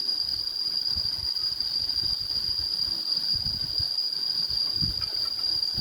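Insects, crickets, chirring in one continuous high-pitched tone, with a few soft low knocks from handling partway through.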